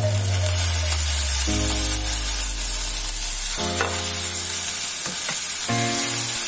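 Onions and spices sizzling in hot oil in an iron wok. Partway through, fish roe goes in and is stirred with a steel ladle while the hot oil keeps hissing. Background music plays over it.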